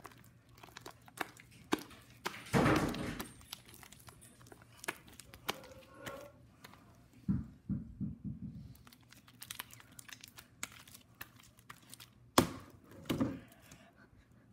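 Handling noises: scattered clicks and knocks, a rustling crinkle about two and a half seconds in, a few dull thuds later, and a sharp knock near the end.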